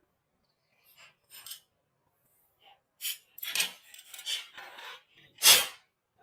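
A series of short scraping strokes, faint at first and louder from about three seconds in, the loudest near the end.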